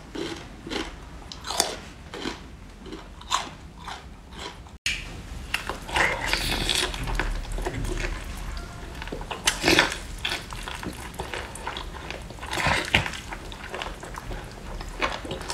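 A person chewing and biting mouthfuls of spicy food, with short mouth noises coming at irregular intervals.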